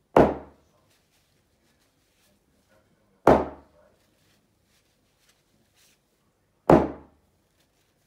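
Hammer blows onto wet acrylic paint blobs on a painting board lying on a table: three thuds about three seconds apart, each dying away quickly. This is the 'hammer smash' fluid-art technique, each blow splattering a paint cell outward.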